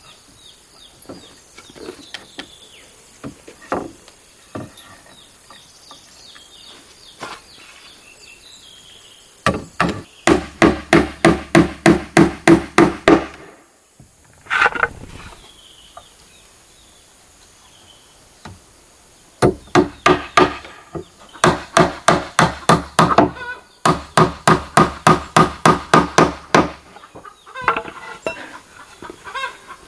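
Hammer driving nails into wooden roof planks: three runs of quick, evenly spaced blows, about four a second, starting about a third of the way in. Chickens cluck in the quieter stretches.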